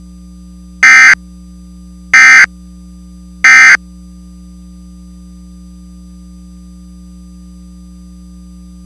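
EAS SAME End of Message data tones: three short, loud, identical warbling digital bursts about a second apart, signalling the end of the alert. A steady low hum continues underneath and after them.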